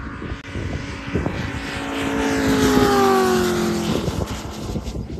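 P-47 Thunderbolt's Pratt & Whitney R-2800 radial engine and propeller in a low flyby, growing louder and then dropping in pitch as the plane passes, loudest about three seconds in.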